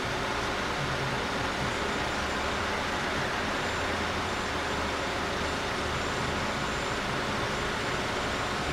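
Steady rushing noise of road vehicles with engines idling, with a low rumble underneath and a faint steady tone.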